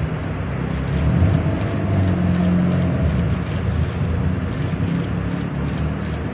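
Modified sports car's engine running at low speed with a deep, steady rumble as the car drives slowly away.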